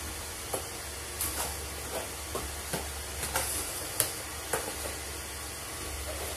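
Anycubic i3 Mega 3D printer running mid-print with a steady low hum. Over it come scattered short clicks and rustles from plastic filament being unrolled off a spool by hand.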